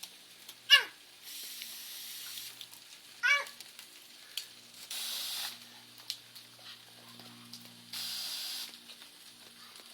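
Water running from a tap in three short bursts. Between them come two brief high squeals that slide down in pitch, and these are the loudest sounds.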